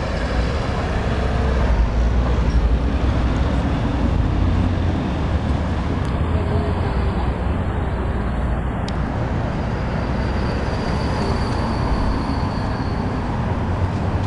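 Steady city street traffic noise, a continuous rumble of passing cars and other vehicles.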